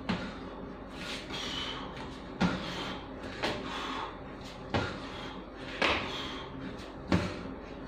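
Soft knocks of a person's feet setting down on the floor during Hannibal push-ups, about six in a row at uneven intervals.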